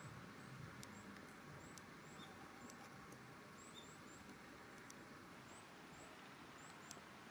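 Near silence outdoors, with short high chirps from a small bird about once a second and a few faint clicks.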